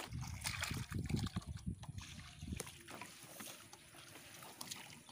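Water splashing and sloshing out of a cut plastic-bottle fish trap as it is lifted from shallow water, for about the first two and a half seconds, then fainter rustling and knocks as the bottle is handled.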